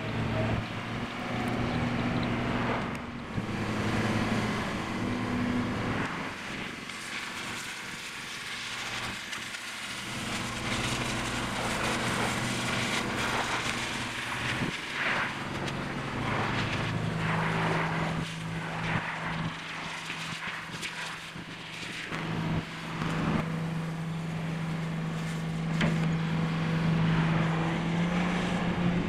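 A heavy-equipment engine running, its hum shifting in pitch in steps, with scattered short knocks and hiss over it.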